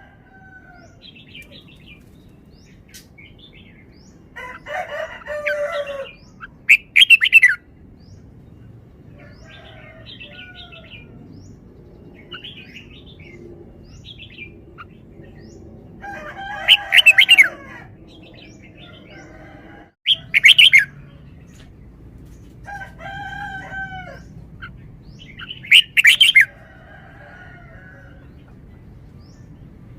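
Red-whiskered bulbul singing: loud, short phrases of bubbly whistled notes about five times, with fainter calls in between.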